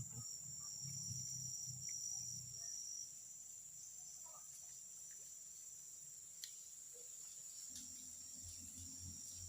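Insects trilling steadily in a continuous high-pitched drone, with a second high trill that stops about three seconds in. A faint low rumble sits underneath at the start and again near the end.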